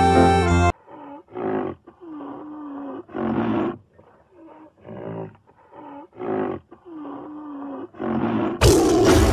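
A dozen or so short growls and grunts from a large animal, irregularly spaced, each lasting under a second to about a second. Background music cuts off about a second in and comes back loud near the end.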